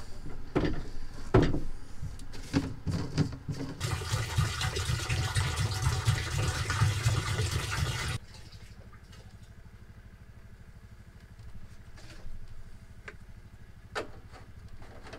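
Water poured from a jerrycan into a camper's plastic fresh-water tank: a steady gushing from about four seconds in that stops suddenly about eight seconds in. Before it, a few knocks and handling noises as the wooden cover over the tank is moved; after it, only a few faint clicks.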